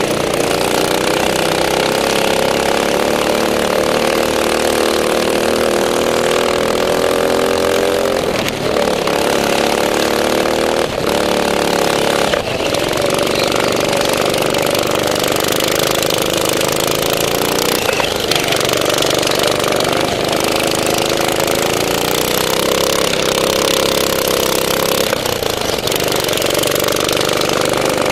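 Go-kart engine running hard, heard close from on board the kart. Its pitch keeps rising and falling, with short dips every few seconds.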